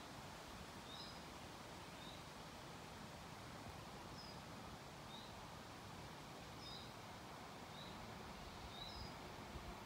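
Quiet outdoor background with a small bird calling: short high chirps, roughly one a second.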